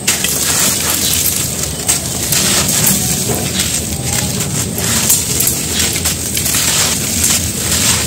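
Dry red dirt chunks crumbling and crunching in bare hands: a dense, gritty crackle of many small breaks with no pauses.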